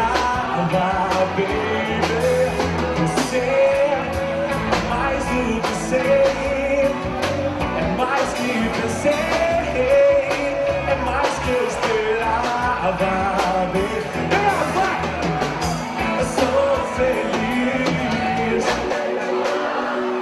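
Live band music from a pop-rock song: a steady drum beat with guitar under a held, wavering melodic line, with singing.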